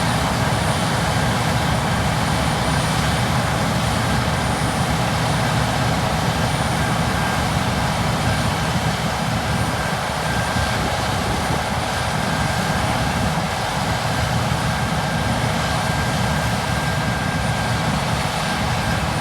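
Heavy harvest machinery running steadily: a continuous engine and mechanical drone with thin, steady high tones over it.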